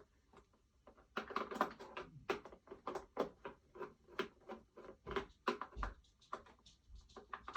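Screwdriver turning a long screw out of the plastic body cage of a Gemmy life-size animatronic: a run of irregular clicks and plastic creaks, a few per second.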